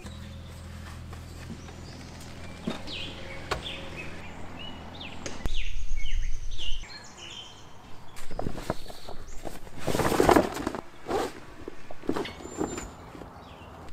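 Outdoor ambience with songbirds chirping, and knocks and rustling of a rooftop tent being folded and its cover handled. A louder rustle comes about ten seconds in.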